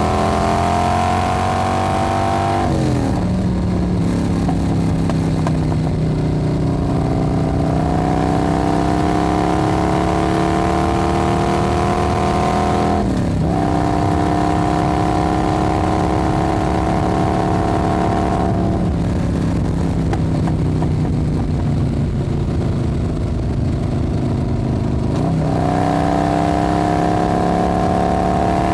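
Motorcycle engine pulling steadily under acceleration, its pitch climbing slowly and then dropping sharply at each upshift, about three times.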